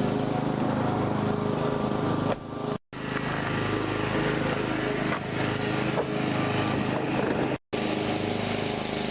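A small engine running steadily at an even speed, cut off twice for a split second.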